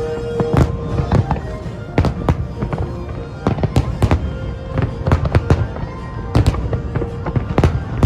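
Fireworks bursting in rapid, irregular bangs, several a second, over a continuous low rumble, with music playing along.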